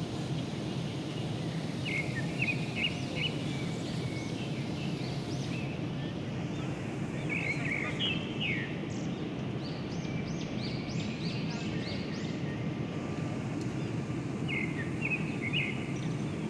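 Boeing airliner cabin noise, a steady low drone, with short high chirps and squeaks now and then over it.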